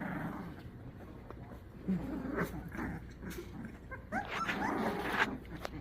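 American bully puppies play-fighting, with scuffling and short high cries, a cluster of them about four seconds in.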